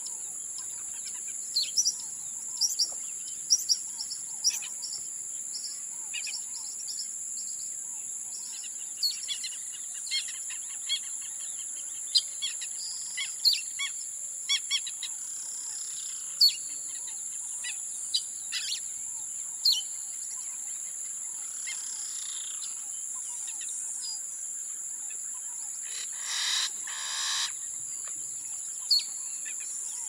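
Amazon rainforest afternoon ambience: many birds chirping and calling in short notes over a steady, high-pitched insect drone. Near the end a louder, longer call sounds twice.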